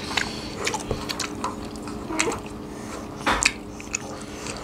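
Close-miked eating: chewing and mouth smacks with scattered small clicks as hands and a ceramic spoon work food on the plates and in the soup bowl, one louder click a little past three seconds in.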